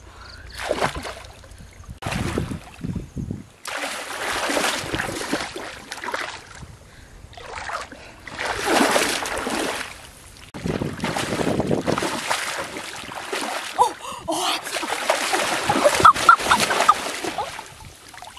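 Water splashing and sloshing as a person wades through shallow, weedy water, in uneven stretches separated by short pauses.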